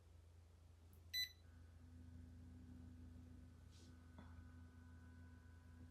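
A Panasonic F-YV32LX inverter dehumidifier gives a short control-panel beep about a second in, then starts running with a faint steady hum and a thin high tone. This is the whine the owner likens to a jet engine in its silent dehumidify mode and treats as an abnormal noise.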